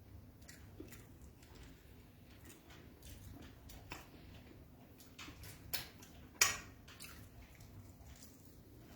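Close-up eating sounds: scattered soft, wet clicks and smacks of a mouth chewing beans and fried plantain, with two louder clicks a little after the middle.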